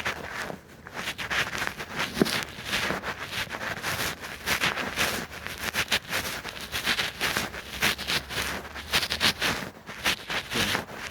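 Footsteps crunching and rustling through dry leaves and undergrowth on a woodland trail, an irregular stream of crackles.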